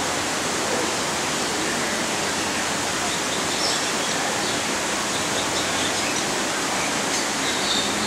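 A steady, even rushing noise that does not change. A few faint, short bird chirps come through about halfway and again near the end.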